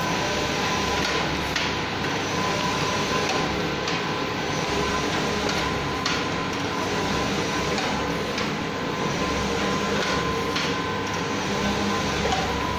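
Large-format UV printer running while printing backlit film: a steady machine noise with a constant high tone and a few faint clicks.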